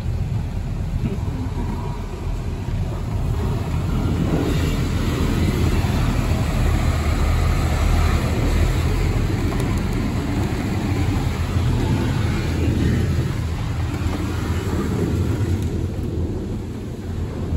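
High-pressure water jets of a Washworld Razor touchless car wash spraying and drumming over the car body, heard from inside the cabin. The spray grows louder a few seconds in and eases a little near the end.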